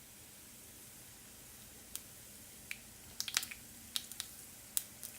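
Mustard seeds and urad dal in hot oil for a tempering, starting to pop: a faint sizzle, then scattered sharp pops from about two seconds in, coming faster toward the end as the seeds begin to splutter.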